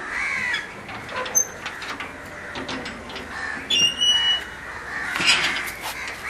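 Crows cawing repeatedly, with a short high squeak about four seconds in.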